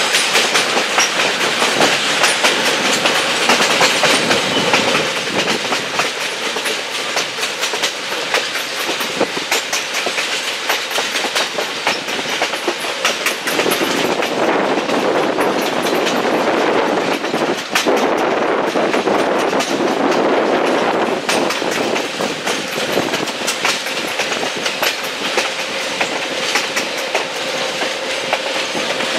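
Railroad passenger car rolling along the track: a steady wheel-and-rail rumble with frequent irregular clacks.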